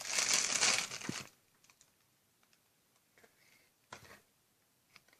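Plastic packaging crinkling as it is handled for about a second, then near quiet with a couple of faint taps.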